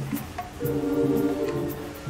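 Background music: a held chord swelling over a steady low beat.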